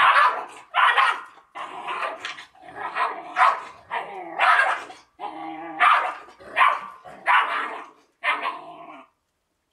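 Georgian mountain dog (nagazi) puppy barking and yapping at an adult dog, about a dozen sharp barks in a row with some growling mixed in, stopping about nine seconds in.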